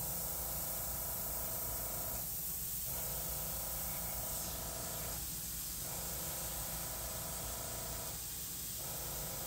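Airbrush hissing as small dots of paint are sprayed onto paper, the air easing off briefly about three times.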